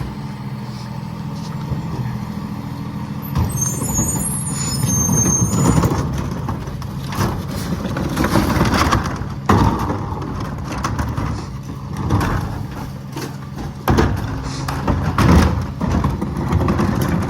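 Freightliner garbage truck with a McNeilus rear-loader body, its diesel engine running steadily. A brief high squeal comes about four seconds in, followed by repeated loud surges and knocks.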